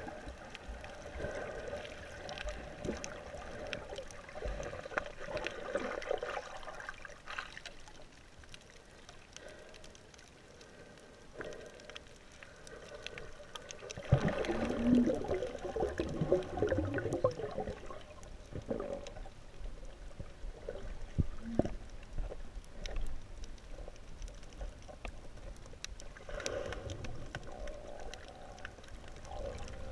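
Underwater sound picked up by a camera held below the surface while snorkeling: muffled water movement and gurgling with a steady low hum and a few clicks, and a louder stretch of sloshing and knocking about halfway through.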